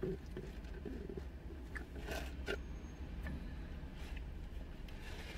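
Small eating and drinking sounds: a plastic drink cup and straw being handled and stirred, with a few short clicks and scrapes, and chewing, over a steady low hum.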